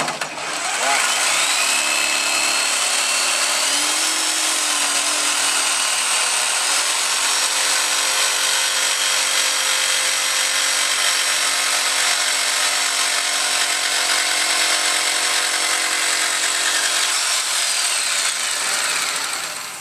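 Corded electric jigsaw cutting through wood, starting from a hole. The motor's whine rises as it speeds up about a second in, runs steadily under load, then falls away as the saw winds down near the end.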